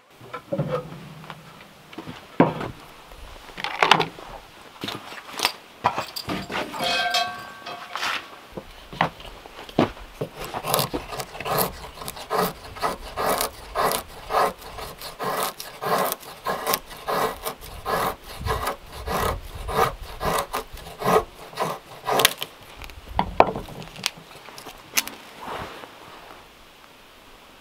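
Knife blade shaving a stick of wood into kindling curls, in a long run of even scraping strokes, a little under two a second, with scattered knocks and handling sounds before it.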